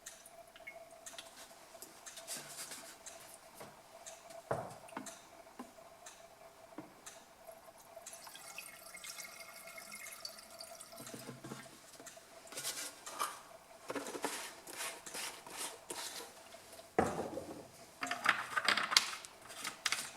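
Two-stroke fuel mix being poured into a chainsaw's tank, with light liquid and dripping sounds. Clicks and knocks come from the fuel container and saw being handled, and a sharper knock about four seconds in.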